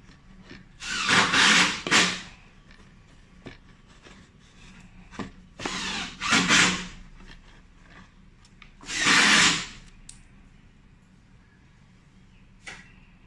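Cardboard packaging rustling and scraping as parts are pulled out of a box with a moulded pulp tray: three loud scrapes of about a second each, then a light click near the end.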